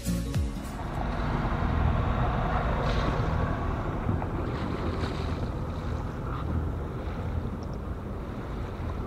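Sailing yacht under way: a steady low rumble with water rushing along the hull and wind on the microphone. A snatch of music cuts off in the first half second.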